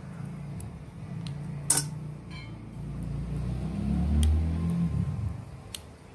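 Metal knitting needles clicking now and then as wool is knitted, the sharpest click about two seconds in, over a low rumble that swells about four seconds in and dies away about a second later.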